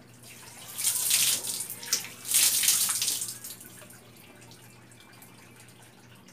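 Water poured from a plastic dipper splashing over a bather and onto the floor, twice, about a second and a half apart, then light dripping.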